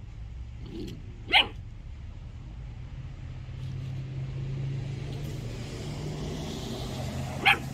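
Belgian Malinois puppy giving two short, high barks, one about a second and a half in and one near the end, over a steady low hum.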